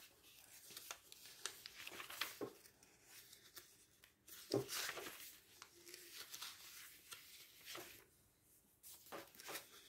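Faint rustling of glossy catalogue pages being turned by hand, with a sharper page flip about four and a half seconds in.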